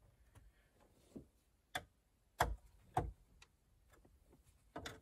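Faint, scattered clicks and light knocks of a screwdriver working the small screws that hold the instrument cluster into a Chevy Caprice's plastic dash, each screw being given a gentle final snug. The three loudest clicks come about two, two and a half and three seconds in.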